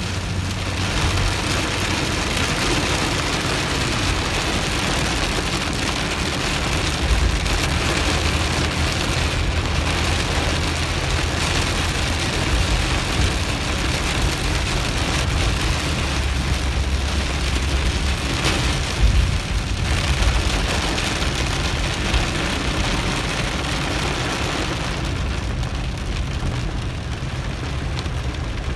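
Heavy rain drumming on the roof and windshield, heard from inside a moving vehicle's cabin, over a steady rush of wet road noise and a low hum.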